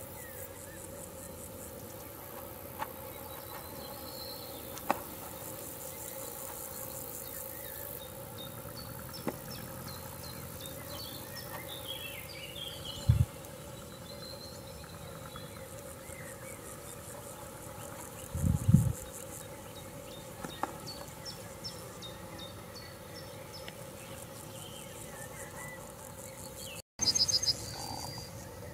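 Summer field ambience: insects stridulating in rapid pulsed trains, with scattered short chirps and a faint steady hum underneath. Two short low thumps, about halfway through and again a few seconds later, are the loudest sounds. Near the end the sound drops out for an instant, followed by a brief louder burst.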